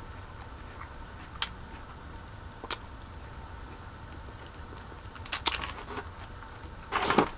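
Quiet crisp crunches and clicks from chewing a dry waffle cone: a few single sharp clicks spaced a second or more apart, a short cluster of crackles, then a brief, louder run of crackling near the end.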